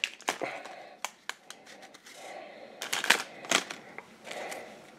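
A stack of trading cards and their wrapper being handled: scattered light clicks and short rustles, with a few louder snaps about three seconds in.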